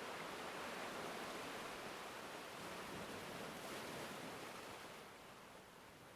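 Faint steady wash of water noise, like surf or underwater ambience, easing off a little about five seconds in.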